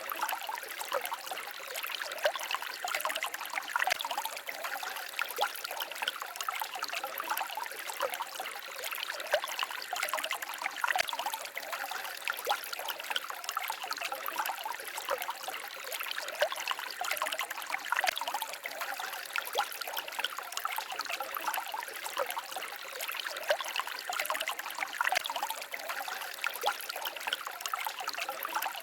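A small stream trickling and babbling steadily, light splashing water with little low rumble.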